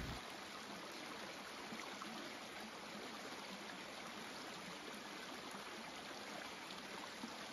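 Faint, steady rush of a running stream.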